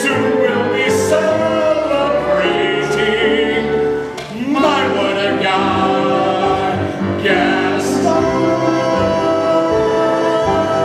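A man singing a stage-musical number in a full, operatic style over accompaniment, with other voices joining in. After a brief dip about four seconds in, his voice slides upward into a held note.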